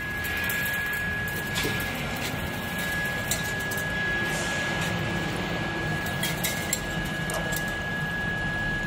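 Steady workshop machinery hum with a constant high-pitched whine, broken by a few light clicks and taps.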